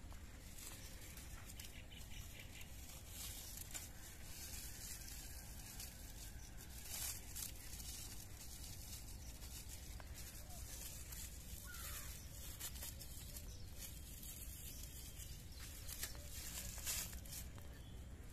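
Faint rustling and rubbing of rope being pulled and knotted by hand, with louder rustles about seven seconds in and again near the end, over a steady low rumble.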